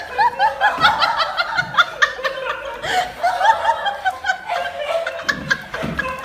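A person laughing hard in a rapid string of short, high-pitched giggles.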